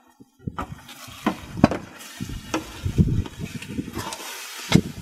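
A big batch of eggs sizzling in a wide thin metal tray, with a metal spatula scraping and tapping against the tray in short strokes. The loudest tap comes just before the end.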